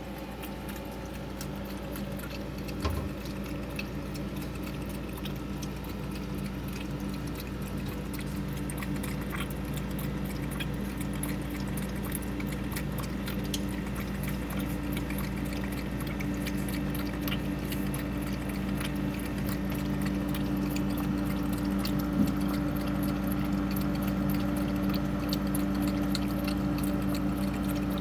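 A cat lapping cold water inside a refrigerator: faint light clicks and splashes over a steady hum that slowly grows louder.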